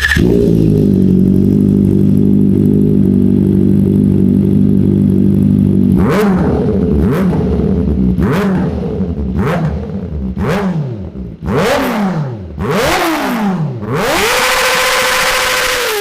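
Kawasaki Ninja ZX-4RR's 399 cc inline-four engine idling steadily just after starting. From about six seconds in, it is blipped in a series of quick revs that rise and fall, and near the end a longer rev is held high.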